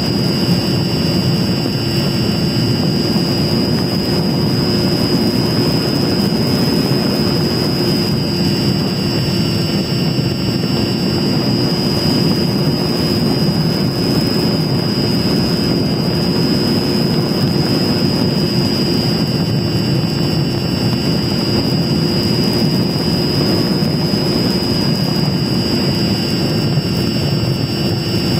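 Electric motor and propeller of a Mini Talon RC plane in steady flight, with wind rush, heard through the onboard camera's microphone: a Sunnysky 2216 1250 kV brushless motor turning an APC 9x6 propeller. It gives an even low drone with a steady high whine above it.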